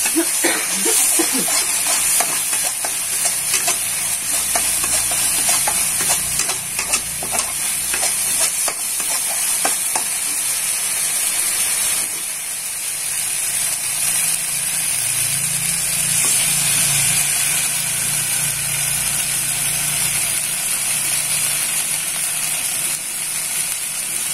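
Chili spice paste sizzling in a wok while a spatula stirs and scrapes it around the pan, with frequent scraping strokes in the first half and a steadier sizzle after. A low hum comes in about halfway through and fades out a few seconds before the end.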